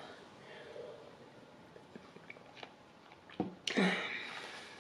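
Quiet sips and swallows of milk from a glass, then, about three and a half seconds in, a sharp knock as the glass is set down on the table, followed by a short breath.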